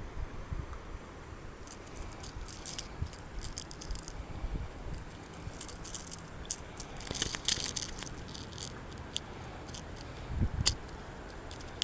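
Scattered light metallic clicks and rattles in a few short clusters, from a small bass being unhooked and the lure's treble hooks and tackle being handled, over a low rumble with a dull thump about ten seconds in.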